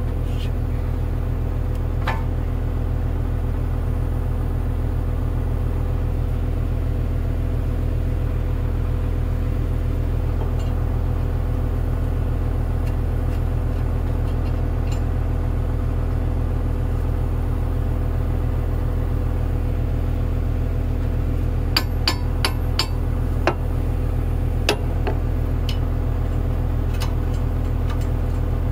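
An engine idling steadily throughout. About 22 seconds in, a quick run of sharp metal clinks, with a few more over the next few seconds, as metal parts are handled against the track.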